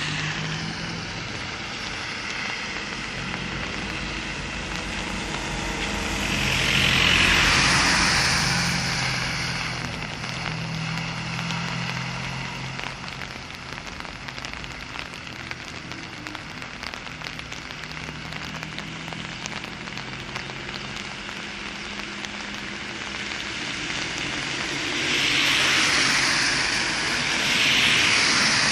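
Cars passing on a wet road, their tyres hissing on the wet asphalt. One car swells past about seven seconds in, the loudest moment, and more pass near the end, over a low steady engine hum.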